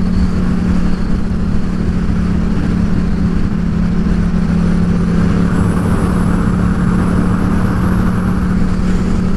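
Yamaha XSR700's 689 cc parallel-twin engine running at a steady cruise, with wind and road noise.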